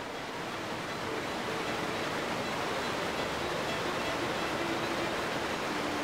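Rushing water from a nearby creek cascade, a steady even roar, with soft instrumental music faintly underneath.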